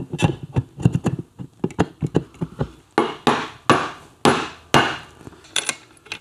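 Aluminium crankcase half of a Triumph Tiger Cub engine being seated on the other half. First comes a flurry of quick clicks and knocks as it is worked into place, then about five sharp blows roughly half a second apart, each with a short ring, as it is tapped down.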